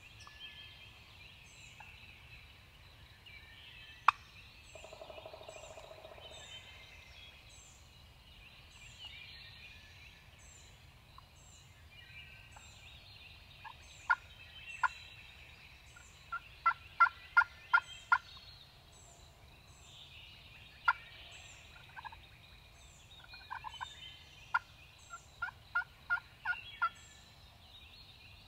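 Turkey calling: runs of loud, short yelps, several notes in a row at about three a second, with a lower rattling call a few seconds in. A single sharp click sounds about four seconds in, and songbirds chirp faintly throughout.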